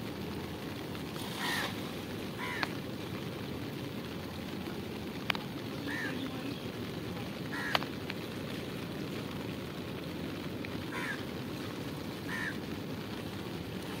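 Steady low rumble of wind and water, with about six short bird calls scattered through it and a few sharp clicks.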